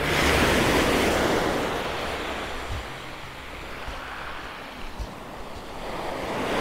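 Small sea waves breaking on a sand and shingle beach and washing up the shore. A wave breaks at the start and its wash fades over a few seconds, then the next one swells near the end.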